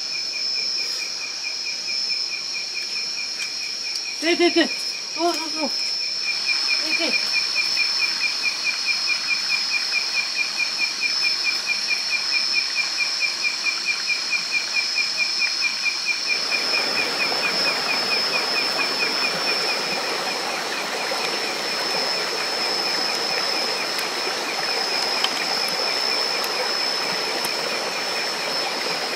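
Night insects: crickets chirping in a steady, rapidly pulsing trill over a continuous high-pitched insect drone. A few short pitched animal calls come in between about four and seven seconds in, and a steady hiss joins the insects from about halfway through.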